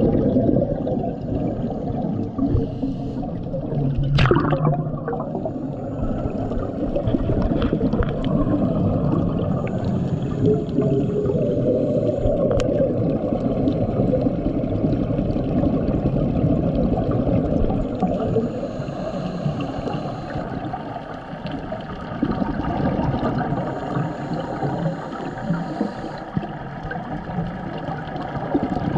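Scuba divers' exhaled bubbles rushing and gurgling, recorded underwater as a continuous muffled wash. Two sharp clicks stand out, one about four seconds in and one about twelve seconds in.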